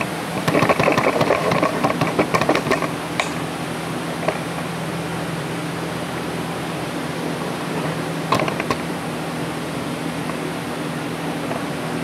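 A steady low machine hum, with about two and a half seconds of rattling and clicking starting about half a second in, as of things being handled, and a brief clatter of a few clicks about eight seconds in.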